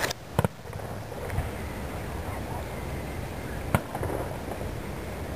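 Fireworks going off: a quick pair of sharp bangs about half a second in and a single bang almost four seconds in, over steady outdoor background noise.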